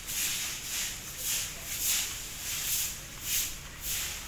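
Footsteps on a concrete path, a regular scuffing step about every two-thirds of a second.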